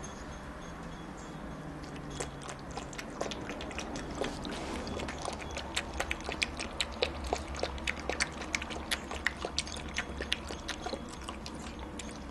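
Bichon Frise puppy lapping water from a bowl: a quick run of wet clicks, a few a second, starting about two seconds in and stopping near the end.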